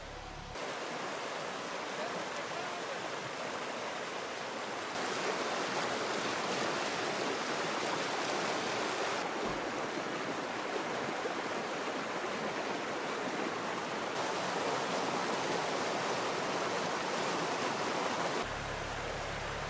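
Flowing stream water, a steady rushing without any tone, its loudness stepping up or down a few times as the sound shifts between closer and farther stretches of water.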